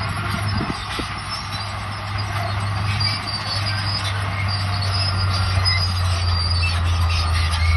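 Crawler bulldozer working: its diesel engine runs with a steady low hum while the steel tracks squeal in short high-pitched bursts.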